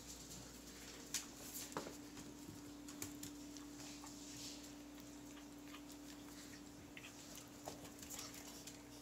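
Dogs' toenails clicking and pattering on a tile floor as several small dogs shuffle about at close quarters, with a faint steady hum underneath.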